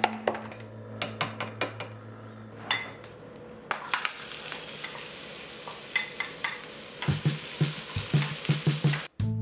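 Food sizzling as it fries in a pan, with scattered clicks of stirring. Near the end comes a run of quick knocks, about five a second.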